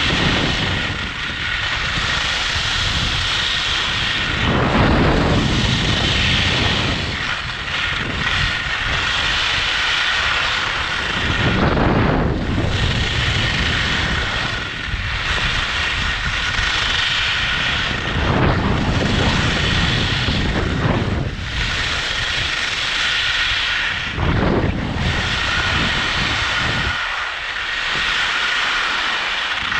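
Skis running down a freshly groomed piste with wind rushing over the camera: a steady hiss of snow and air, swelling with a heavier low scrape every few seconds as the edges bite into each turn.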